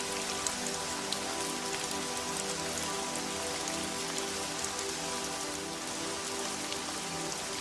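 Steady rain falling, a constant hiss with scattered individual drops ticking, over soft sustained background music.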